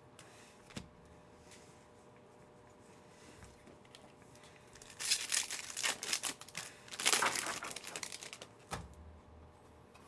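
Foil wrapper of a Panini Mosaic football card pack being torn open and crinkled, in two stretches of rustling about five and seven seconds in.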